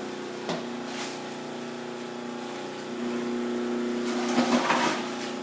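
Electric cabbage slicer (continuous-feed food processor) running with a steady motor hum. About four seconds in, cabbage is pressed through it and shredded, a louder stretch of cutting noise.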